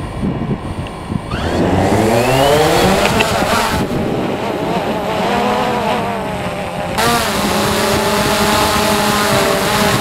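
DJI Phantom 2 Vision+ quadcopter's four motors and propellers spooling up with a rising whine about a second in, then holding a steady buzz that wavers in pitch as it lifts off and hovers in strong gusty wind. Wind rumbles on the microphone underneath.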